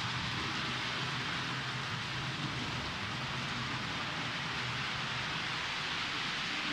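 H0-scale model train running on the layout track: a steady rushing hiss of wheels on rails with a low hum beneath.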